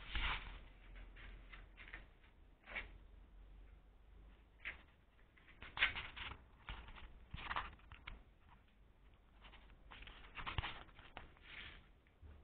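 Scattered light rustles, taps and knocks, irregular and a few seconds apart: handling noise of a handheld camera as it is carried and turned about.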